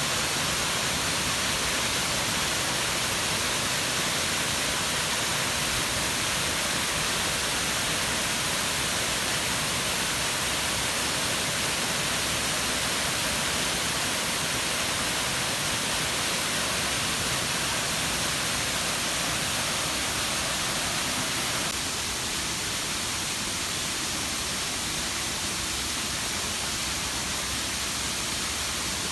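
Steady rushing of water falling down an artificial waterfall. After about twenty seconds it drops a little in level and the rush sounds slightly softer.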